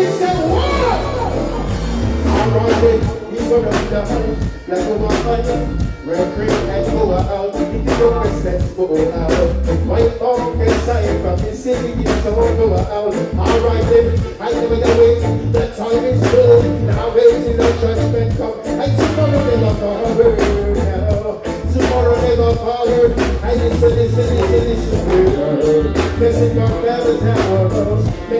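Live stage music over a PA system: a bass-heavy reggae backing track with a steady beat, and a man singing over it on a handheld microphone.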